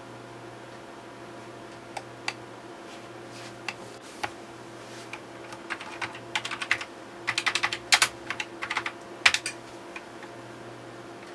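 Computer keyboard being typed on: a few scattered keystrokes, then a quicker run of key clicks in the second half, over a steady low hum.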